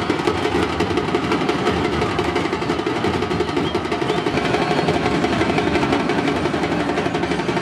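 Fast, dense drumming over the din of a large crowd, steady and loud throughout.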